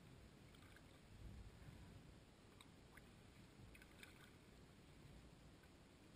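Near silence, with faint drips and light splashes from a kayak paddle over a low rumble.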